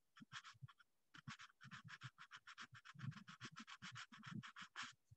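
Faint, quick, even clicking or tapping, about seven clicks a second. A few scattered clicks come first, then a steady run from about a second in that stops just before five seconds.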